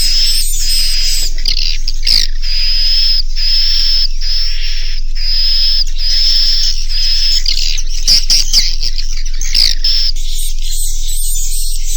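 Swiftlet roosting lure call ('suara inap'), a recorded edible-nest swiftlet call track used to keep swiftlets settling in a bird house. It is a loud, steady run of evenly repeated high chirps, about three every two seconds, with a few sharp clicks about two seconds in and again around eight to nine seconds. Near the end the calls turn thinner and higher.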